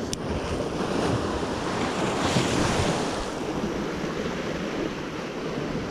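Surf washing and breaking over the rocks of a jetty, with one wave surging louder about two to three seconds in.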